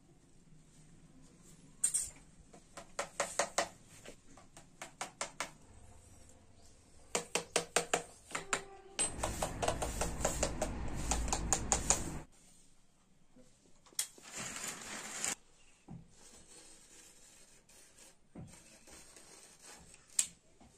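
Snap-off utility knife at work on cardboard: several runs of rapid clicks, then about three seconds of loud scraping near the middle as the blade cuts the board, and a shorter cut a few seconds later.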